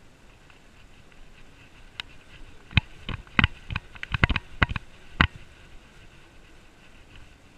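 About a dozen sharp knocks and rattles in quick succession over roughly three seconds, starting about two seconds in: a bicycle and its handlebar-mounted gear jolting over bumps in a rough path.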